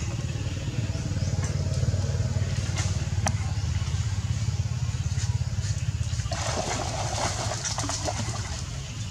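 Water splashing for about two seconds, starting about two-thirds of the way in, as a macaque heaves itself out of a pool. Under it is a steady low rumble, with a few sharp clicks earlier on.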